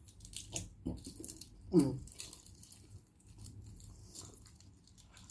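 Close-miked eating sounds from a boiled duck egg (penoy): scattered soft clicks and crackles of the egg being handled and bitten, with a brief voiced sound about two seconds in.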